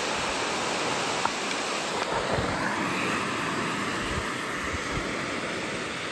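Steady rushing hiss of creek water running over rocks, with a few low wind thumps on the microphone from about two seconds in.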